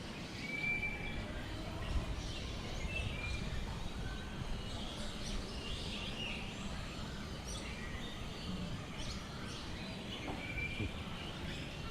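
Assorted birds calling, a scatter of short whistled notes and chirps, over a steady low background rumble.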